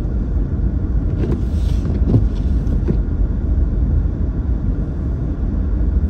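Car driving on a snow-covered road, heard from inside the cabin as a steady low rumble of engine and tyres. A brief hiss and a couple of light knocks come between one and three seconds in.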